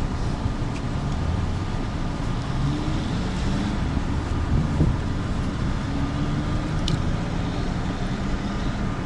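Street traffic noise: car engines running nearby, with an engine note rising in pitch a few times over a steady low rumble.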